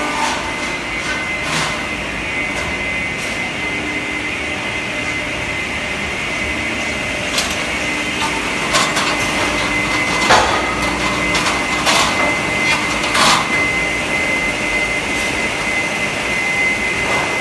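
Pallet production line machinery running: a steady drone with a high whine, broken by sharp knocks and clacks that come thickest in the middle.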